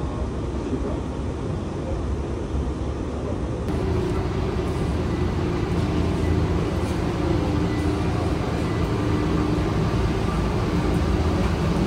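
Running noise of a driverless airport people-mover train on its guideway; about four seconds in it gives way to a steady mechanical drone with a low hum, heard inside a glass jet bridge beside a parked Boeing 777.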